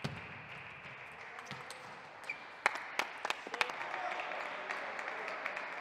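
Table tennis rally: a quick run of sharp clicks of the ball on the bats and table, lasting about a second, over steady crowd murmur, followed by applause as the point ends.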